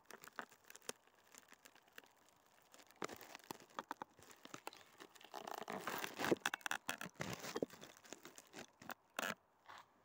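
Footsteps crunching and scraping in snow, an uneven run of crunches that grows busier and louder in the middle stretch, with one sharp crunch near the end.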